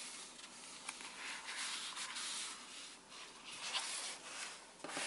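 Paper and a plastic sleeve rustling and rubbing on a desk as a sheet of stamps is handled and slid into the pages of a diary, with a few small ticks of paper being moved.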